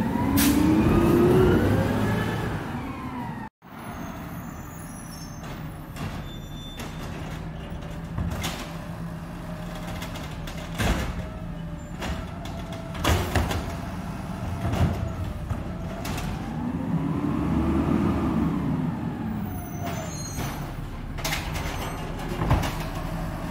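Garbage truck engine running, revving up and back down twice, once near the start and again about two-thirds through, with scattered knocks and clanks.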